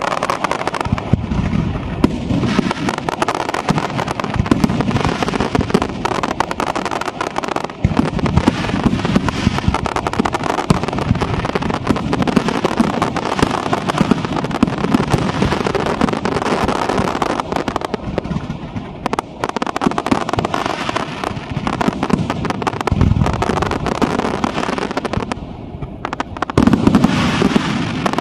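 Aerial firework shells bursting in rapid, dense succession: a continuous barrage of bangs and crackling. It eases briefly a few seconds before the end, then comes back louder.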